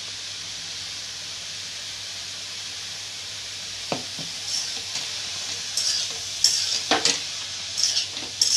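Chopped vegetables sizzling in a steel kadhai, with a steady hiss. From about four seconds in, a steel spatula stirs the vegetables, scraping and knocking against the pan several times.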